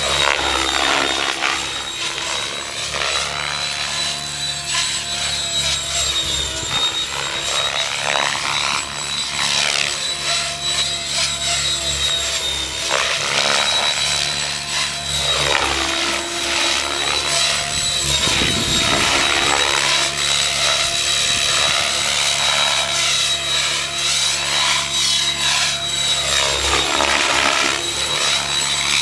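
Mikado Logo 600 electric RC helicopter flying 3D aerobatics on 12S power: a steady high whine from its Kontronik Pyro motor held at one speed by the speed controller, with the rotor blades whooshing in swells that rise and fall every few seconds as the helicopter manoeuvres.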